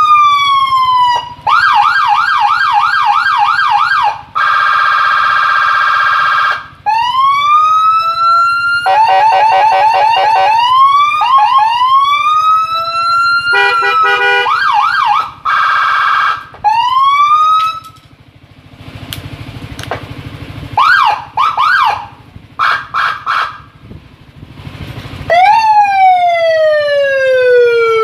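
Custom Whelen-style electronic police-escort siren for a motorcycle, cycled through its tones. It plays a falling wail, then a fast yelp of about three sweeps a second, then a steady buzzing horn tone, with rising sweeps and a quick warble in between. A quieter stretch of short chirps follows, and near the end a sharp rise drops into a long, slow falling wail.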